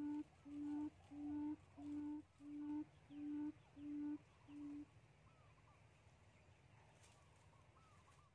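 A low hooting call repeated evenly about twice a second, each hoot a single steady pitch, stopping about five seconds in; faint bird chirps continue behind it.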